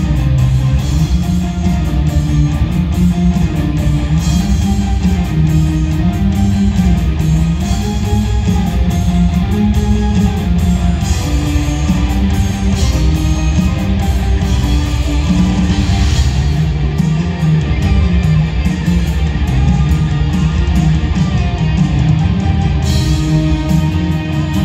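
Live symphonic rock played at full volume in an arena, led by electric guitar over a heavy rock backing, recorded from the audience.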